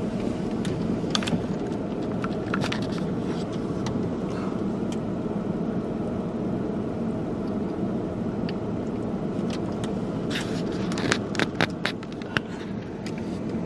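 Steady hum of a car's running engine, heard from inside the cabin, with a few scattered clicks and light knocks, most of them near the end.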